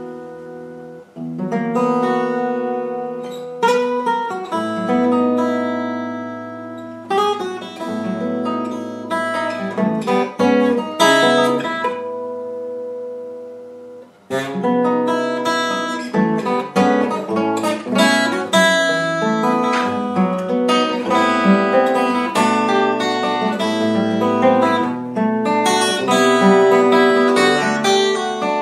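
Acoustic guitar playing alone: plucked notes and chords left to ring. Near the middle a chord fades out into a brief pause, then a busier passage of quicker notes and strums follows.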